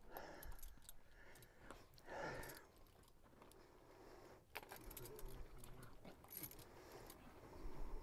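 Faint, scattered metallic clinks and jingles of a mule's bit and bridle hardware as she mouths the bit. The bit hangs low and knocks against her front teeth.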